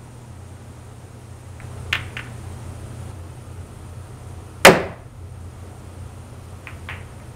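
A pool cue striking the cue ball in a steep massé stroke: one loud, sharp crack about halfway through with a brief ring-out. Faint clicks of balls touching come before it and again near the end, over a steady low hum.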